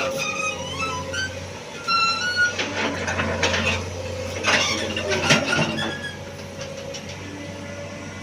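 Excavator working: a steady diesel engine hum under short, high metallic squeals and several sharp clanks, busiest in the first six seconds and then quieter.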